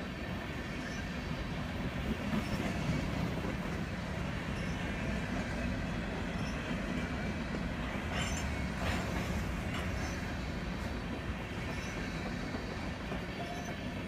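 A freight train's tank cars and covered hopper cars rolling past: a steady rumble of steel wheels on the rails, with a few sharper clicks and clanks about eight to nine seconds in.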